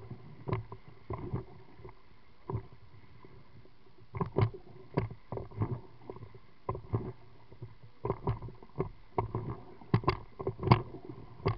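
River water slapping and splashing against the tube of an inflatable one-man pontoon boat in irregular bursts, over the low rush of moving water. The strikes come thickest in the second half.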